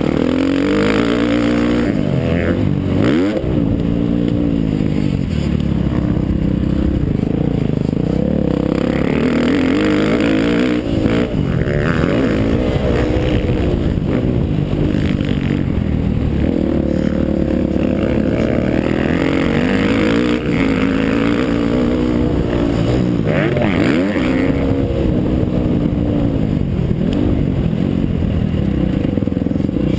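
Dirt bike engine revving up and down as the rider works the throttle and gears around a motocross track, its pitch rising and falling over and over, with a few sudden drops.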